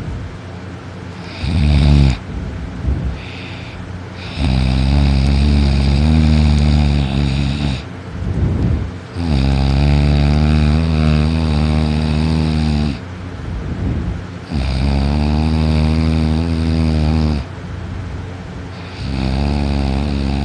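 A sleeping person snoring really loud: a short snore, then four long snores of three to four seconds each, about every five seconds, with quieter breathing between them.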